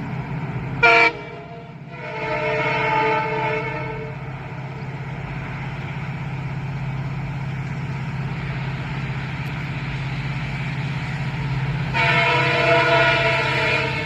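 WDP4D diesel locomotive sounding its horn as a warning to a person on the track. There is a very short blast about a second in, a longer blast from about two to four seconds, and another near the end, all over a steady low drone from the train.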